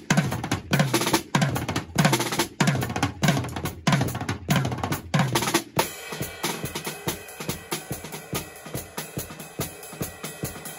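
TAMA Cocktail-JAM compact four-piece drum kit being played with sticks: strong, evenly spaced drum hits about two a second with a cymbal wash over them. About halfway through the playing turns lighter and busier, with the cymbal ringing.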